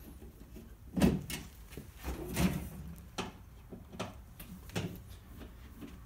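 A screwdriver backing out the screws of a sheet-metal breaker panel cover: scattered clicks and light metal knocks, the loudest about a second in.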